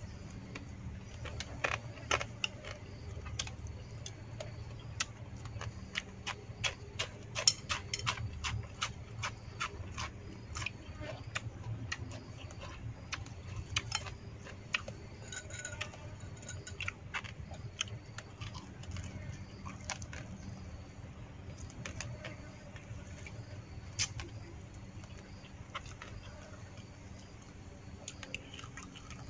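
A man eating grilled field rat with chopsticks from a bowl: many sharp, irregular clicks and crunches of chewing and of chopsticks against the bowl, thickest in the first half and sparser later. A steady low hum sits underneath.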